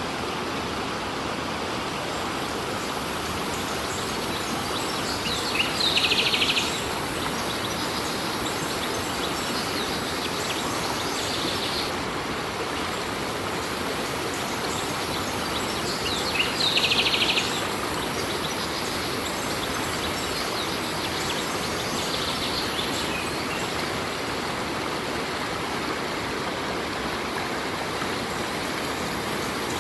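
Stream water flowing steadily, with a bird's rapid trill of quick repeated notes about six seconds in and again about seventeen seconds in, and fainter calls in between.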